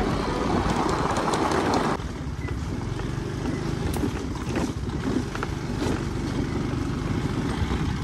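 Steady low rumble of a vehicle travelling along a gravel and dirt track. It is louder and fuller for the first two seconds, then drops abruptly to a thinner rumble.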